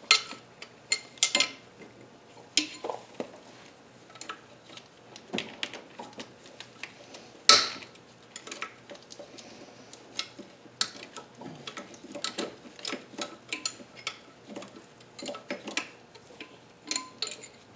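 Wrench and bolts clinking and clicking against metal as 10 mm bolts on an engine mount are loosened, with irregular sharp clicks and one louder clank about seven and a half seconds in.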